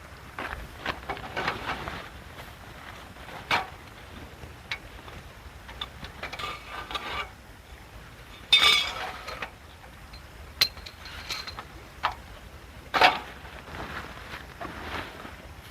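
Scattered light clinks and knocks of camp gear being handled, with a louder rustling burst about halfway through.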